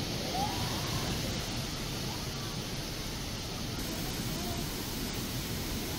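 Steady rushing noise of heavy monsoon water, rain or a swollen stream, with faint voices in the background.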